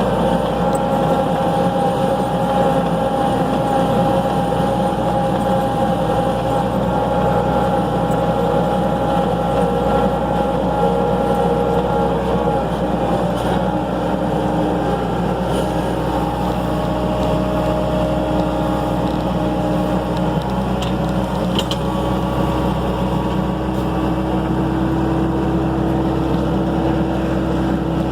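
Skid steer engine running steadily under load, a continuous drone whose tones shift slightly in pitch partway through.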